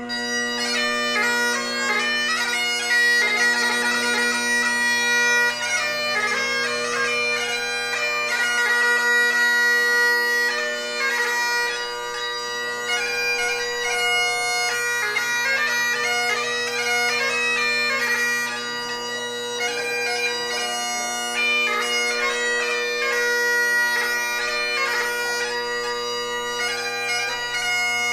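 Great Highland bagpipe played solo: the drones hold one steady low note while the chanter plays a quick melody broken up by rapid grace notes.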